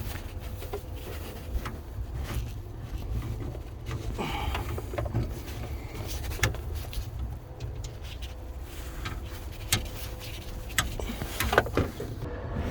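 Scattered metal clicks and knocks as the rear hook of a BMW F10 trunk tension spring is worked onto its mount, over a steady low rumble.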